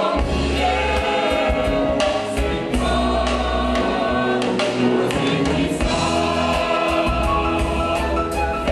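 Choir of women's voices singing a Protestant evangelical hymn in held, sustained chords.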